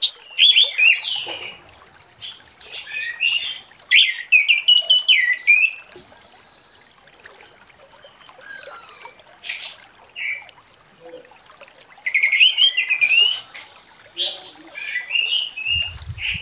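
Orange-headed thrush singing its full song in short, varied phrases of quick chirps and warbles, separated by pauses. About six seconds in there is one long, thin, high whistle that drops slightly in pitch.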